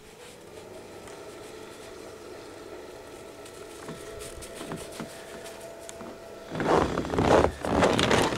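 Footsteps crunching through snow near the end, loud and uneven, after a stretch of faint steady hum.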